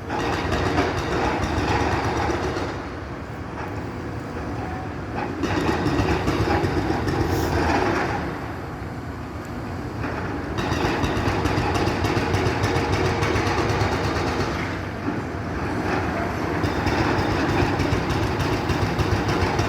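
Demolition excavator working its jaw attachment into a building: the engine runs steadily under a continuous clatter and crunch of breaking masonry and falling rubble, swelling louder and easing off several times.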